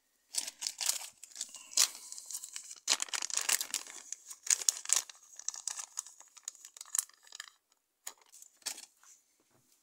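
Plastic packet crinkling and rustling as it is handled to get at more modelling clay: dense irregular crackles for most of the time, thinning to a few scattered ones near the end.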